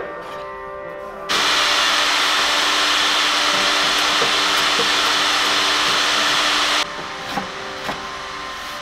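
A loud, steady rushing noise from a workshop machine, like a vacuum or blower, that starts suddenly about a second in and cuts off suddenly about two seconds before the end; background music runs underneath.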